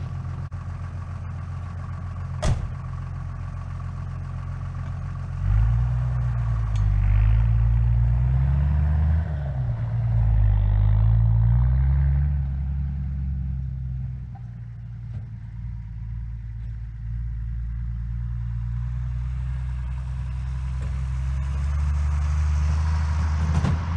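1966 Ford F-250 pickup engine running steady, with a sharp knock about two and a half seconds in. From about five seconds in it revs up and swings up and down in pitch as the truck drives, eases off past the middle, and builds again near the end.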